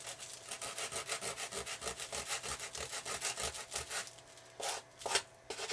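Coarse sandpaper rubbed by hand over the painted foam of an RC airplane wing, roughing up the smooth finish so the epoxy will grip. Quick, even back-and-forth strokes stop about four seconds in, followed by a few separate strokes near the end.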